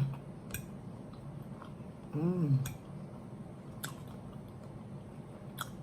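Close-up chewing and mouth sounds of a person eating, with a few sharp clicks. About two seconds in comes a brief hummed "mmm" of enjoyment.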